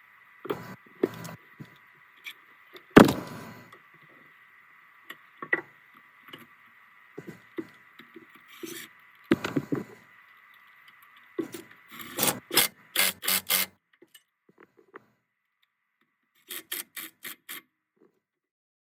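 Hand tools and metal parts clinking, scraping and knocking during garage work, with one loud knock about three seconds in and a faint steady high tone underneath for the first twelve seconds. Near the end come two quick runs of sharp clicks, a few seconds apart.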